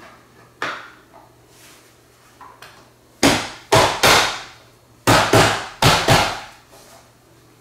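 Gaming chair's plastic back cover being smacked by hand to snap it onto its clips over the seat-to-backrest attachment point: sharp knocks, one, then three, then four in quick succession.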